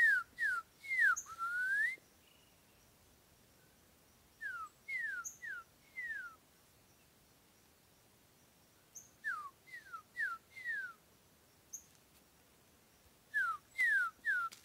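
Green-winged saltator (trinca-ferro) song: four phrases a few seconds apart, each a quick run of four or five clear whistled notes that slide downward, two of the phrases ending in a longer upward-sliding note.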